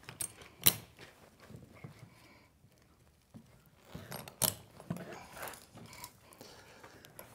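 Metal snap hooks on a braided rope grab line clinking as they are clipped onto the D-rings of an inflatable boat's hull, with the rope rustling. There are a few sharp metallic clicks, the loudest about a second in and again about four and a half seconds in.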